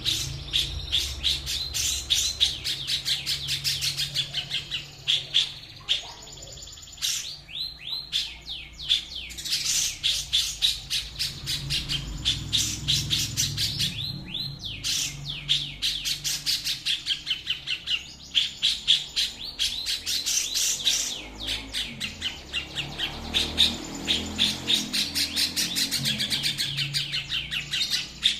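A songbird singing fast, dense runs of high chirps, many a second, twice broken by short downward-sweeping whistles, over a low steady hum.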